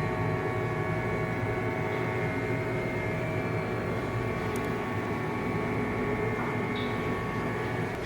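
Steady machinery running: a constant drone with several held tones, unchanging throughout.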